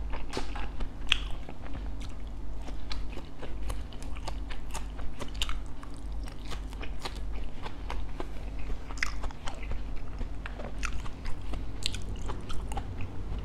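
Close-miked chewing and crunching of crispy fried bánh khọt (Vietnamese mini rice pancakes), with many short, sharp crackles of the crisp crust between bites.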